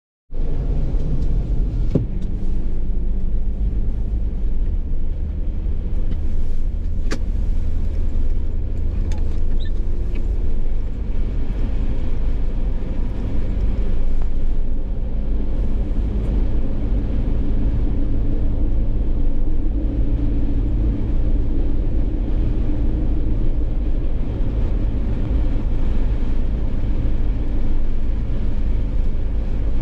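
A Jeep driving at speed on a highway, a steady low rumble of road and engine noise with a few faint clicks.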